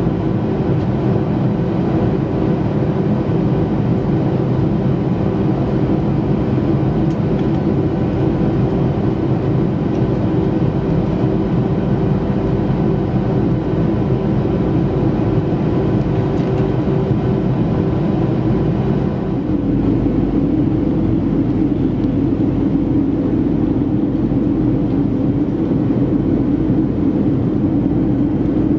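Steady cabin drone of a Boeing 737-500 in flight: its CFM56-3 jet engines and the airflow, heard from a seat over the wing while the plane descends through cloud. About two-thirds of the way in, the drone's tone shifts and a lower hum grows stronger.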